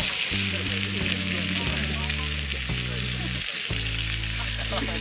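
Slices of red meat sizzling as they fry in a hot pan on a gas burner, a steady hiss, with background music playing.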